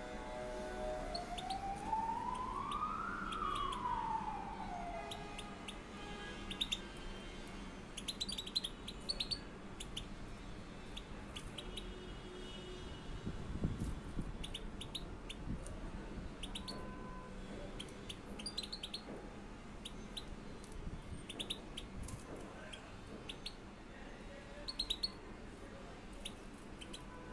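Two caged young European goldfinches giving short, high chirps and calls, scattered all through, with small clicks among them. Near the start a siren rises and falls once, over about four seconds.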